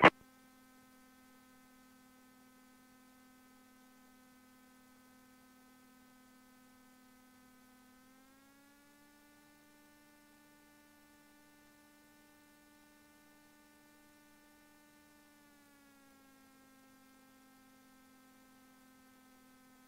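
Faint, steady electrical hum in the aircraft's radio and intercom audio: one pitched tone with overtones that steps up a little in pitch about 8 seconds in and drops back about 16 seconds in.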